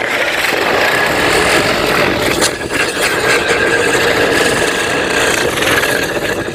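A chakri ground-spinner firecracker spinning and burning inside a stainless-steel pressure cooker: a loud, steady whirring hiss with a steady whine running through it, the spinner turning unevenly because the cooker is too cramped for it.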